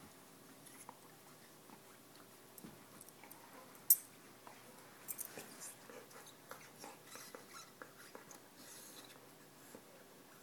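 Golden retriever gnawing on a Goughnuts Maxx hard rubber ring chew toy: faint, irregular clicks of teeth on rubber, with one sharp click about four seconds in and busier chewing after that.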